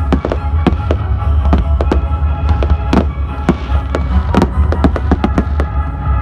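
Fireworks going off in quick succession, several sharp bangs a second at irregular spacing. Music with a strong steady bass plays underneath.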